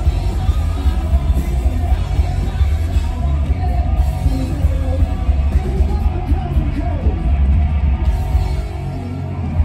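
Rock band playing live at full volume, a male lead singer over guitars and drums, with a heavy, boomy low end. The level eases slightly near the end.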